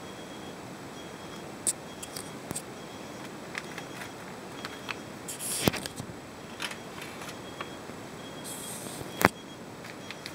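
Handling noise: scattered sharp clicks and short rustles over a steady hiss, the loudest clicks about halfway through and near the end.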